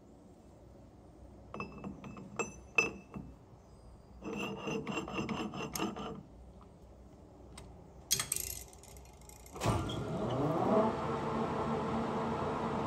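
Metal clinks and rattles as a gear is set into a three-jaw lathe chuck and clamped, then a few sharp knocks. About ten seconds in the lathe starts, the chuck spinning up with a rising hum, then running steadily.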